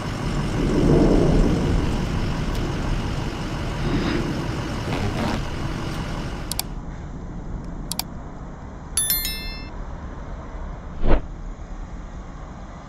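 Road vehicle noise, a steady low rumble, with a few clicks, a brief high-pitched tone about nine seconds in and one sharp, loud knock about eleven seconds in.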